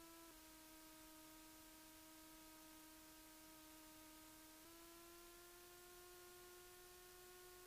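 Near silence: a faint steady electrical hum on the cockpit audio feed, one tone with overtones that drops slightly in pitch about a third of a second in and rises again near five seconds.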